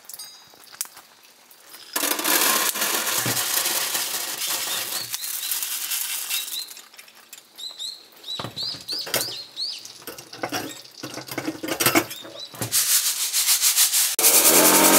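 Freshly roasted coffee beans pouring and rattling out of a small stainless-steel mesh roasting basket into a metal mesh colander, a dense rattle lasting about four seconds. Then scattered metal clinks and short squeaks as the basket is handled. About a second before the end, an electric blower starts with a loud steady hum, blowing on the beans to cool them quickly.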